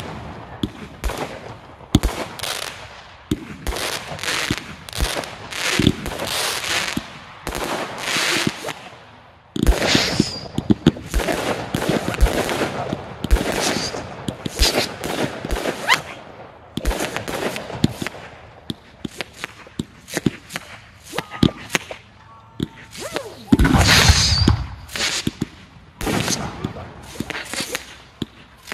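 Fireworks display: aerial shells bursting in rapid, uneven volleys of sharp bangs with crackling between them. The densest, loudest barrage comes near the end.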